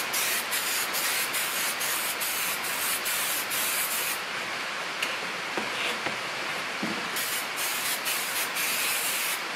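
Aerosol can of spray contact cement hissing as it is sprayed, a near-continuous spray with frequent brief flickers and short breaks.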